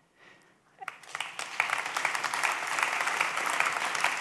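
Audience applauding, starting about a second in after a brief silence.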